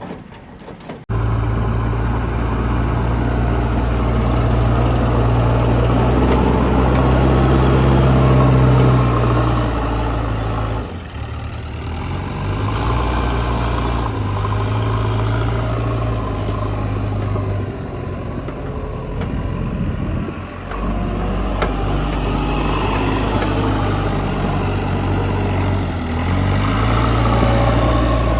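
Diesel engines of a working backhoe loader and tractor running, the engine note stepping up and down under changing load, with two short dips.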